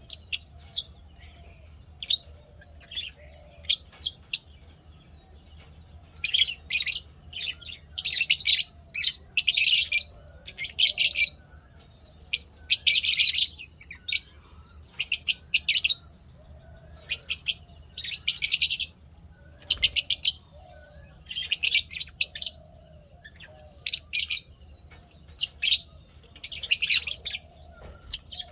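Lovebirds chirping in repeated bursts of fast, high, shrill chatter, each burst up to about a second long with short pauses between.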